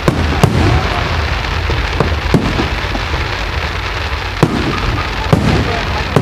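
Fireworks display: aerial shells bursting with sharp bangs at uneven intervals, several in a few seconds, over a steady background of noise.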